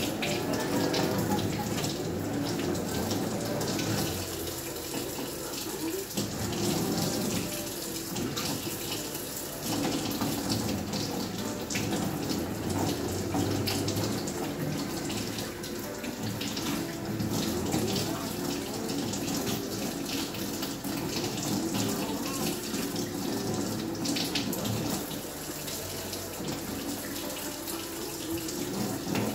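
Kitchen faucet running steadily, its stream splashing over hands and button mushrooms being rinsed in the sink.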